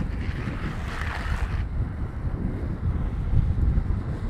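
Wind buffeting the microphone at downhill speed over a steady low road rumble from longboard wheels on asphalt. For the first second and a half a hiss of the board's big grippy wheels sliding on the asphalt as the rider crouches hand-down, which then stops.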